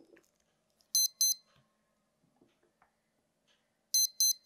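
Brushless motor beeping, driven by the ESC as a speaker during throttle calibration. Two short beeps about a second in acknowledge the full-throttle endpoint, the cue to drop the stick to minimum. Near the end comes a quick run of three short beeps, the ESC signalling a 3-cell LiPo.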